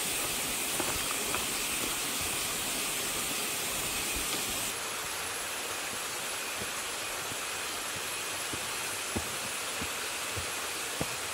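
Steady high-pitched outdoor hiss that changes in character about five seconds in, with a few faint knocks of footsteps on a stony path near the end.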